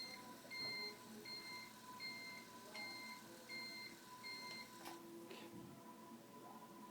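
Electronic beeping: seven short, high beeps about three-quarters of a second apart that stop about five seconds in, over a faint steady tone, followed by a single click.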